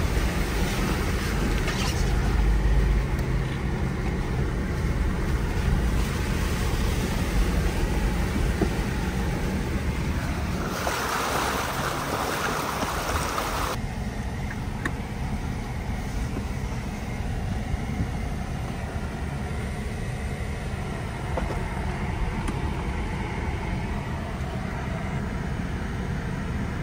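Jeep Wrangler JL crawling along a rough dirt trail: a steady low rumble of engine and tyres, with a brighter hiss for about three seconds near the middle. About halfway through the sound changes abruptly, becoming the quieter, duller rumble heard from inside the cabin.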